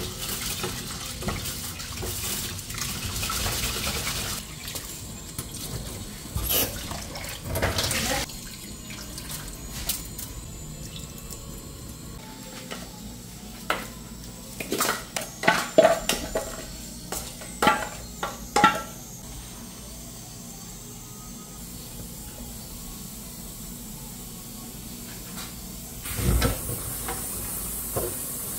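A kitchen tap runs into an aluminium pot while rice is rinsed by hand. The water stops after about eight seconds. It is followed by a run of sharp metal knocks and clinks as the rice is scraped from the pot into a pan on the stove, and a single thump near the end.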